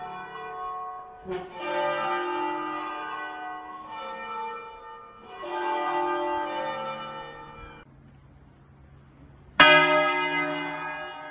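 Church bell tolling slowly in mourning: three strokes about four seconds apart, each ringing on and fading. The ringing breaks off a little past the middle, and after a short lull a louder, sharper stroke sounds near the end.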